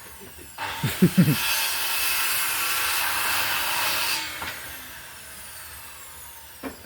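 Electric hand planer cutting a pass along a piece of wood for about three and a half seconds, with a few knocks as the cut begins. The motor whine carries on more faintly after the cut ends.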